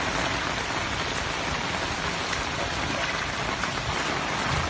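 Heavy rain pouring steadily onto a flooded street: a dense, even hiss.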